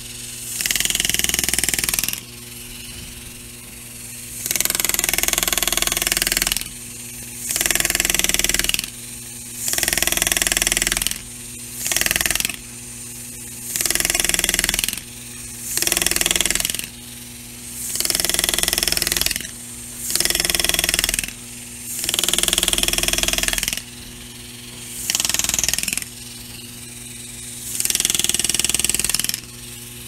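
Pneumatic hand-engraving handpiece chattering in repeated bursts of one to two seconds, about a dozen times, as its graver cuts scrolls into a chrome door handle. A steady low hum fills the gaps between bursts.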